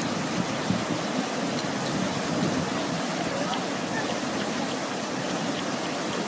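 Rushing floodwater: a steady, even noise of fast-flowing water, with faint distant voices.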